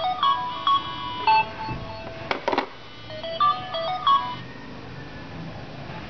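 Mobile phone playing a melodic electronic ringtone from an incoming call. About two seconds in comes a short clatter of several clicks as the rotary phone's handset is set down on its cradle. The ringtone plays one more phrase and stops.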